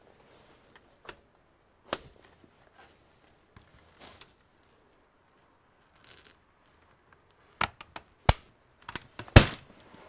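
Plastic case of an Acer Aspire laptop being turned over and handled on a workbench: scattered sharp clicks and knocks, one about two seconds in and a quick cluster near the end, the last the loudest.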